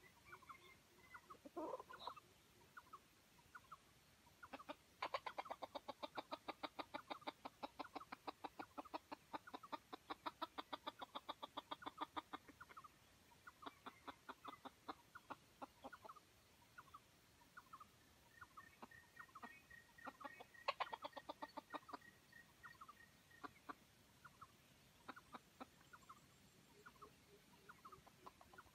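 Junglefowl clucking: scattered single clucks, a long fast run of clucks starting about five seconds in and lasting about seven seconds, and a shorter run about two-thirds of the way through.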